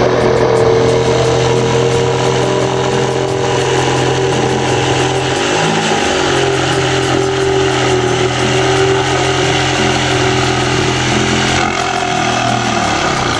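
Electric power tool motor running steadily under load, its pitch sagging briefly about halfway through.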